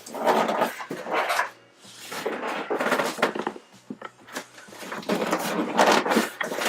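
Rustling and scraping of cardboard and plastic packaging being handled, in three long bouts with short pauses between them.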